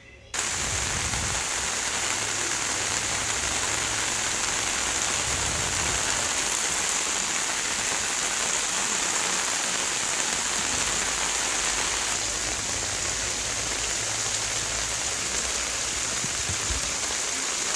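Heavy rain falling steadily, a dense, even hiss that starts abruptly a moment in.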